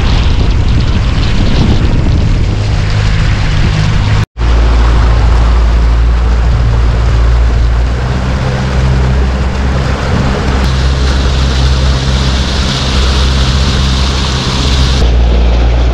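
Outboard motor running steadily at trolling speed, with wind and water rushing past the small boat. A brighter hiss of wind and spray rises from about eleven seconds in and drops away again near fifteen seconds.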